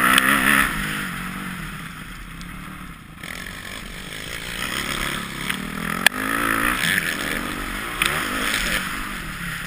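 Dirt bike engine on a motocross track, revving up and down with the throttle through the turns and straights, with rushing noise on the bike-mounted microphone. A single sharp knock about six seconds in.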